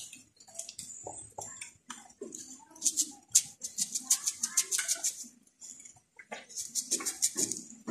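Open wood cooking fire crackling and popping in irregular clusters of sharp snaps under the cooking pots.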